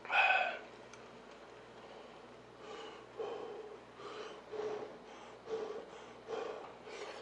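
A short voiced sound at the start, then a series of short breathy puffs about once a second: a person blowing on hot stew food held on chopsticks to cool it.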